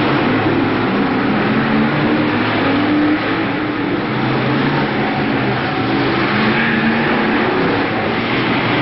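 BriSCA F1 stock cars racing round an oval track: several engines running hard at once, their pitch rising and falling as the cars pass and accelerate out of the bends.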